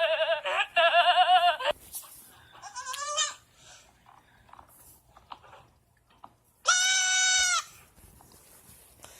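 A person's voice making silly wordless noises. It opens with a loud, bleat-like 'maaa' with a fast tremble that breaks off under two seconds in. A short gliding squawk follows about three seconds in, and a steady held tone comes about seven seconds in.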